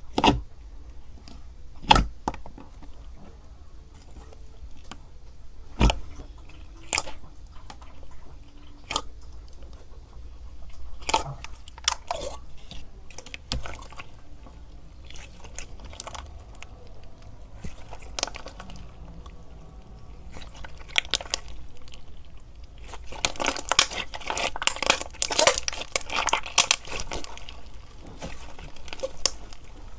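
Crunchy slime being squeezed and pressed by hand, giving scattered sharp crackles and pops. About 23 seconds in there is a dense run of crackling lasting some four seconds.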